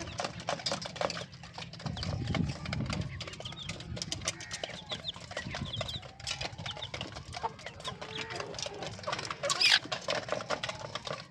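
Rhode Island Red hens clucking and chicks peeping, over a steady run of quick taps and scratches. A louder sharp sound comes near the end.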